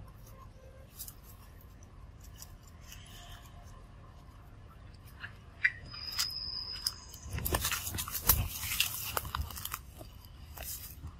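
Dry leaves and twigs crackling and rustling as a baby macaque scrambles through forest leaf litter and undergrowth, in a dense burst of a couple of seconds a little past the middle, with scattered lighter crackles around it. A brief high-pitched squeak comes just before the burst.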